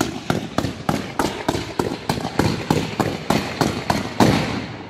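Fireworks going off in a rapid, evenly spaced series of sharp bangs, about three a second, as comets are fired up from ground tubes. The series stops near the end.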